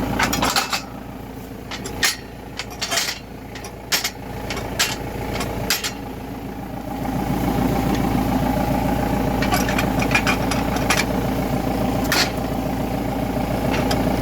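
Tractor engine idling, quieter from about half a second in and back up to its earlier level around seven seconds in. Several sharp knocks and clunks sound over it in the quieter stretch, with a few more near the end.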